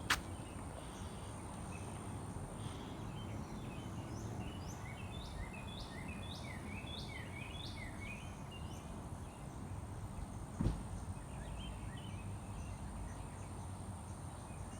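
Birds chirping: many short, quick calls repeating, busiest through the middle and again near the end, over a low steady hum, with one sharp knock about ten and a half seconds in.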